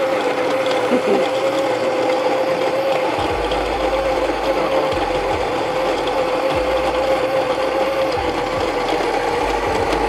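Baratza Encore ESP burr grinder running, grinding espresso beans into its dosing cup with a steady motor hum at an even level.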